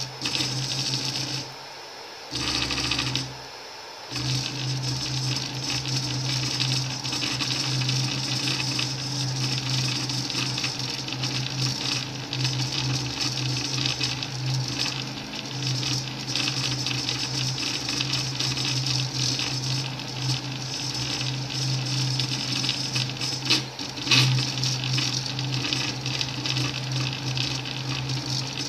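Anet E16 3D printer running a print: its motors hum steadily with a constant fan hiss, stopping briefly twice near the start. The printer is laying filament off the edge of the heated bed, a fault.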